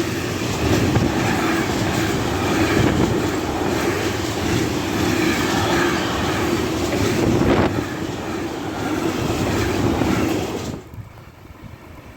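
A train passing close by, its wheels rumbling and clattering steadily over the rail joints. The sound drops away sharply near the end.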